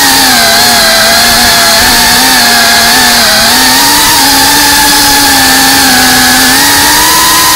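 FPV racing quadcopter's electric motors and propellers buzzing loudly, the pitch rising and falling with the throttle: it dips about three seconds in and climbs again near the end.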